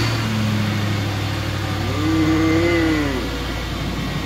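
2004 Ford F-150's 5.4L Triton V8 running at a steady fast idle just after a cold start, with its newly replaced variable valve timing solenoids. It runs smoothly. A short rising-then-falling tone rides over the engine about two seconds in.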